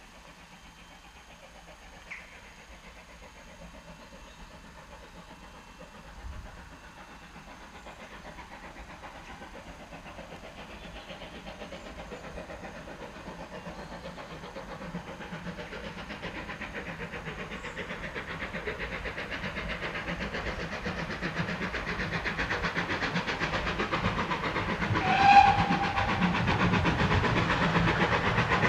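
GWR 4-4-0 No. 9017 'Earl of Berkeley' steam locomotive approaching, its exhaust beat growing steadily louder, with one short whistle blast near the end.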